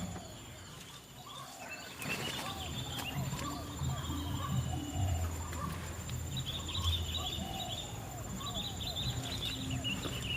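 White-breasted waterhen calls: a steady run of short, repeated rising-and-falling notes. Bursts of high chittering from smaller birds join in the second half, over a low rumble.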